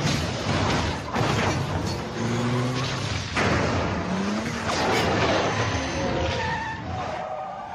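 Action-film car-chase sound mix: a car engine revving up in rising sweeps, tyres skidding, and several sudden heavy hits and booms from crashes and explosions.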